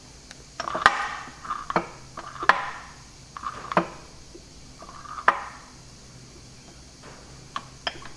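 Steel selector fork and sliding gears inside a Chamberlain 9G three-speed front gearbox being shifted by hand, giving sharp metal-on-metal clunks that ring briefly. About five clunks come in the first five seconds, then two lighter clicks near the end.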